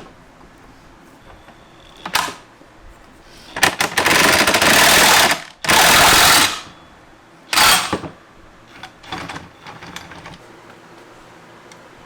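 Pneumatic air tool run in several bursts: a short one, then one of about two seconds, two shorter ones, and a few faint ones near the end.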